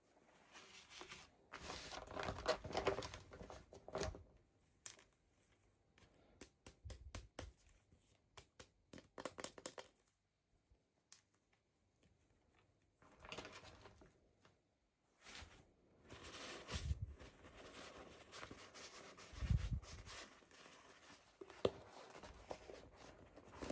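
Packaging being opened by hand: irregular crinkling and tearing, with a run of quick ticks partway through and a few soft low thumps near the end.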